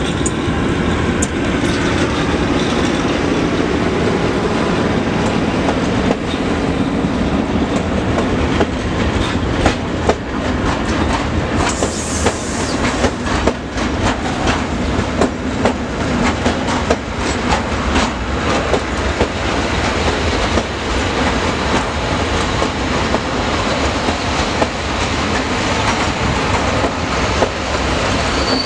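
PKP Cargo ET22 electric locomotive passing with a steady hum for the first few seconds, followed by a long train of open freight wagons rolling by: continuous wheel rumble with repeated clickety-clack over the rail joints.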